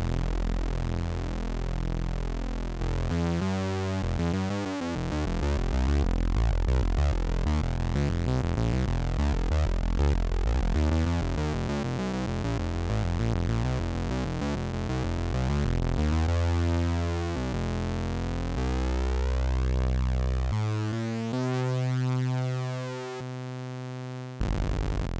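Korg Volca Keys analog synthesizer playing a quick run of changing notes, then a few longer held notes in the last third.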